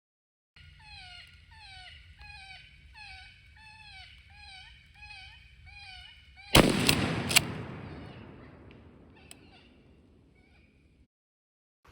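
Electronic predator caller playing a cottontail rabbit distress call, a high, wavering cry that falls in pitch and repeats about twice a second. About six and a half seconds in, two shotgun shots come about 0.7 s apart, the first the loudest, and their echo fades over several seconds.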